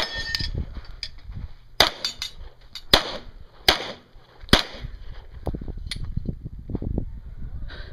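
Pistol shots: one at the very start, four more roughly a second apart from about two seconds in, then two fainter cracks around the sixth second.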